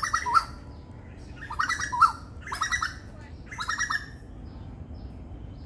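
Asian koel giving harsh, rapid chattering calls: four short bursts of quick rising notes in the first four seconds, not its familiar rising "ko-el" song.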